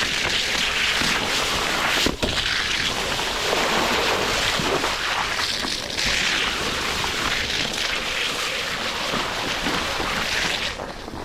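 Onewheel GT's tire ploughing at speed through flooded trail water, a continuous splashing and spraying rush mixed with wind buffeting the microphone. A single knock about two seconds in; the rush eases near the end.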